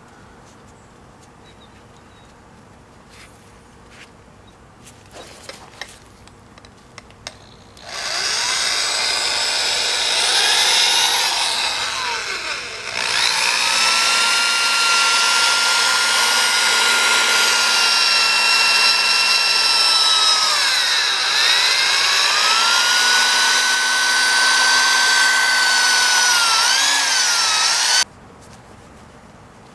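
Makita drill running a Mothers Power Cone foam pad against a chrome exhaust tip, polishing it. It starts about eight seconds in with a steady whine that dips and recovers twice, then stops abruptly near the end. A few light clicks of handling come before it.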